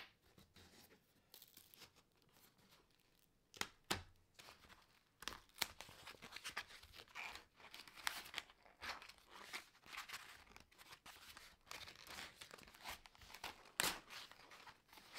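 Original vinyl covering being peeled and torn away from a VW T5/T6 sun visor's foam body, heard as a run of faint, irregular crackly tearing from about five seconds in. Two sharp clicks come before it, one at the start and one about four seconds in.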